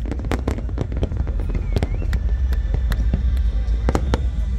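Large fireworks display: a rapid barrage of aerial shell bursts, sharp bangs several a second over a continuous low rumble.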